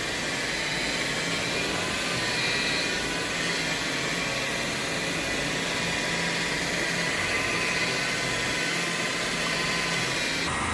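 Steady drone and hiss of a cleaning machine running, its sound changing abruptly near the end.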